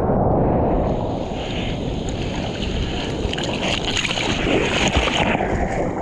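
Surf whitewater rushing and splashing against a surfboard, picked up close to the water surface with wind buffeting the microphone. A higher spray hiss joins about a second in.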